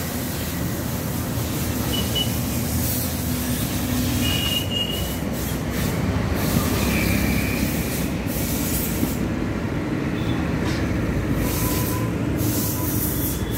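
Busy road traffic: motorcycles and heavy trucks running past, a steady mix of engine and tyre noise with a few brief faint high tones.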